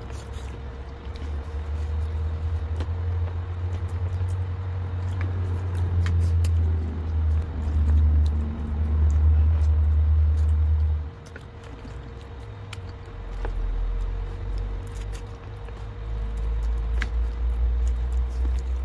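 A low rumble runs through most of it, dropping away for about two seconds just past the middle, with a faint steady hum above it. Over this come scattered small wet clicks of someone sucking and chewing sauce-covered chicken feet by hand.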